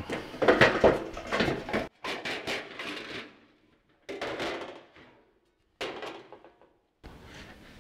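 Sheet-steel car door skin and welded steel door frame being pulled apart and set down on a bench: metal sliding, scraping and clattering in four short bursts with gaps between.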